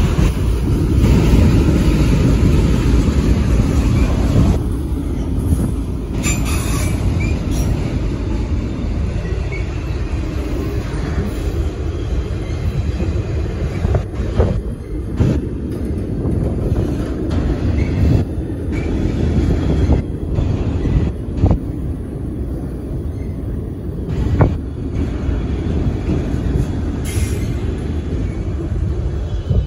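Freight train rolling past: a steady low rumble of railcars and wheels on the rails, with scattered sharp clanks and clicks.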